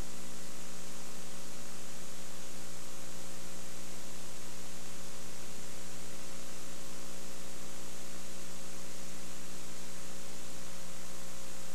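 Steady electrical mains hum under an even hiss, unchanging, with no crowd, ball or whistle sounds above it.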